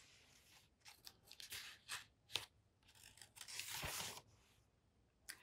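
Faint rustle and crackle of a picture book's paper pages being turned, in several short rustles with the longest near the end.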